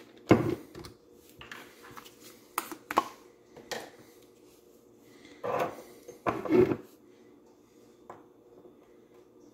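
Clicks and knocks of a glass hot-sauce bottle and small plastic syringe parts being handled and set down on a stone countertop: about a dozen short sharp sounds, the loudest just after the start and a louder, longer pair around six seconds in, then it goes quiet.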